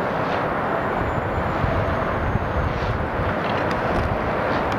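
Steady low rumbling background noise with no distinct events standing out.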